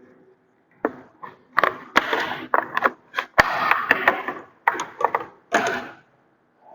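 Handling noise from getting out a multimeter (avometer) for a voltage reading: a run of short rustles and scrapes with two sharp clicks, about two seconds in and a second and a half later.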